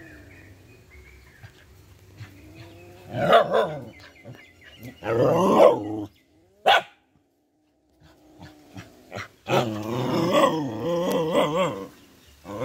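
A cat and dogs squaring off: drawn-out, wavering growls and yowls, loud in two stretches about three to six seconds in and again from about ten seconds in, with a short break of near silence between them.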